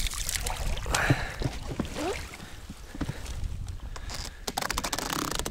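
Rowing a small boat: the oars dip and knock, and water splashes, over a steady low rumble. Sharp clicks come more often near the end.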